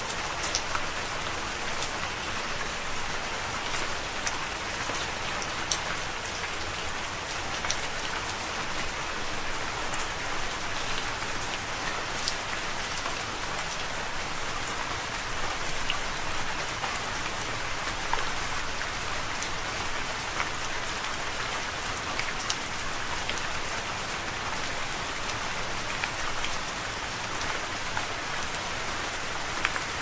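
Steady rain falling, an even hiss dotted with many small sharp taps of individual drops.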